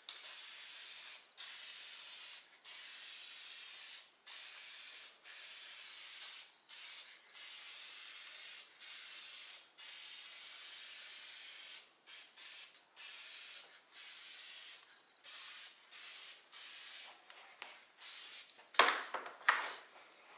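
Aerosol can of clear coat spraying onto a wooden sign in a run of short hissing bursts with brief gaps, the bursts getting shorter in the second half. Two louder knocks near the end.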